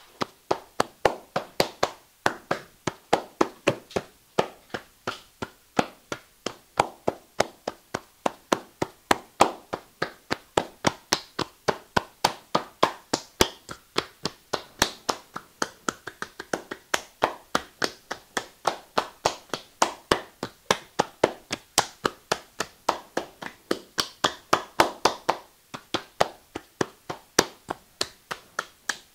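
Hands clapping and slapping in a quick, steady rhythm, about three sharp strikes a second, with a short break near the end: percussive hand massage.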